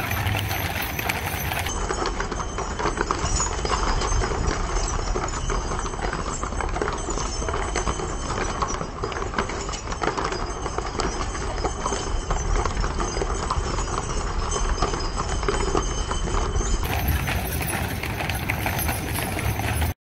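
Hooves of a team of Clydesdale draft horses clip-clopping at a walk, many hoofbeats overlapping in a continuous clatter as they pull a wagon.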